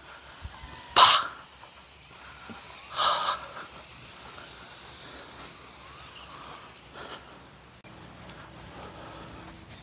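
Two short breathy voice sounds about two seconds apart, the first the word "pa", with faint short high chirps of small birds now and then.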